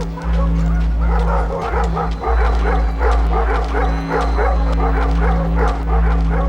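Ambient electronic music: a steady deep bass drone under a fast repeating figure of short yelping notes, about four a second.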